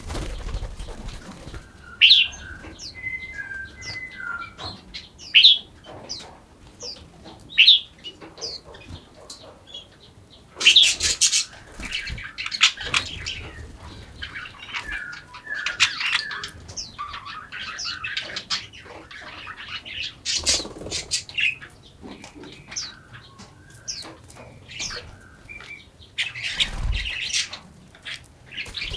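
Small forest birds chirping, with short sharp calls that drop in pitch. Bursts of wing-fluttering or rustling come about ten seconds in, again around twenty, and near the end.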